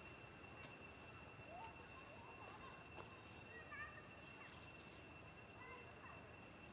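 Near silence: faint outdoor ambience with a steady high-pitched whine and a few faint, short chirps.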